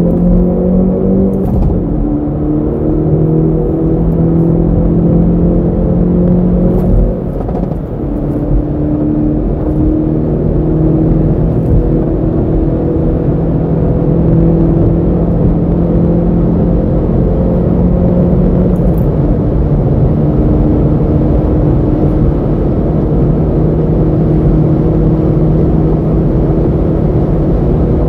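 Hyundai Veloster N's 2.0-litre turbocharged four-cylinder engine and exhaust, heard from inside the cabin while cruising: a steady engine drone that dips briefly about seven seconds in, then settles again.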